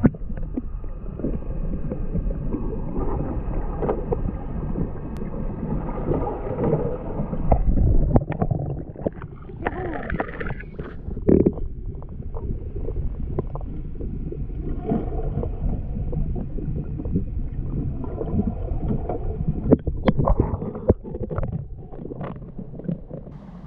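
Water sloshing and gurgling heard from under the surface, muffled and dull, with irregular knocks and splashes from a sea kayak being rolled. Near the end the sound turns quieter and lighter as the camera comes up into the air.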